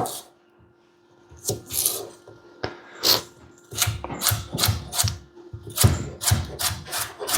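Hand-working a vegetable in the kitchen: repeated scraping strokes with a light knock in each, a few scattered ones and then about three a second from about halfway in.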